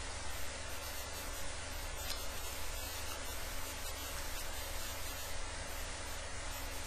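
Steady hiss of microphone and recording noise with a low electrical hum underneath, and no speech.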